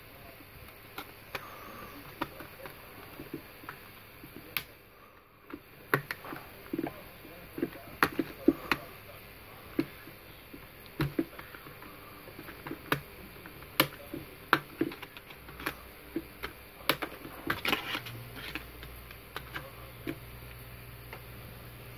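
Irregular small clicks and taps of handling: a smartphone and the recording device being fumbled with at close range, some taps sharp and loud, others faint.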